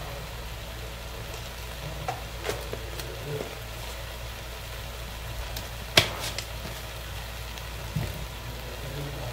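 Okra and masala frying in an aluminium pot on a gas burner: a steady low sizzle and hum, broken by a few sharp clicks, the loudest about six seconds in.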